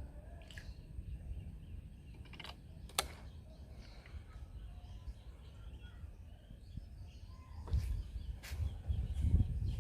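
Outdoor ambience with a steady low rumble, likely wind on the microphone, louder near the end, broken by several sharp clicks and taps, with faint bird calls.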